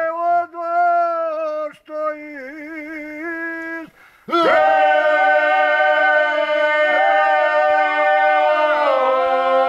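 Men singing bećarac unaccompanied. One voice sings a line alone with wavering, ornamented notes, then about four seconds in the group comes in loudly, holding long notes together, and steps lower near the end.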